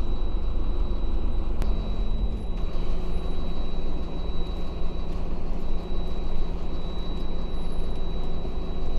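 Diesel engine of a Volvo AC bus idling while it stands waiting to depart: a steady low rumble with a faint high whine over it, and a single click nearly two seconds in.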